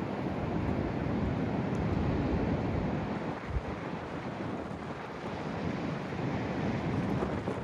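Ocean waves washing in on a strong wind, with gusts buffeting the microphone; the noise swells and eases slowly, with a brief low thump from a gust hitting the microphone about three and a half seconds in.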